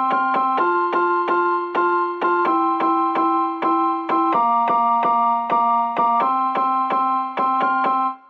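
Background music on a piano-like keyboard: a light melody of quickly repeated notes, about four a second, that stops abruptly right at the end.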